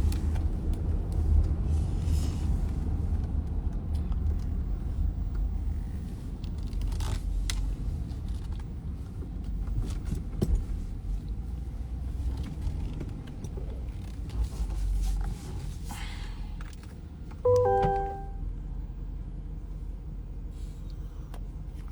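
Car on the move, heard from inside the cabin: a steady low road and engine rumble with a few light clicks and knocks. About 17 seconds in comes a brief beep made of two steady tones.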